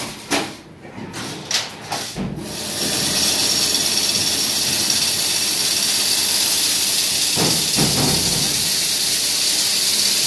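Automatic chain-link fence weaving machine running as it weaves galvanized wire mesh, giving a steady, loud hissing whir. A few clicks and knocks come in the first two seconds before the steady sound settles in.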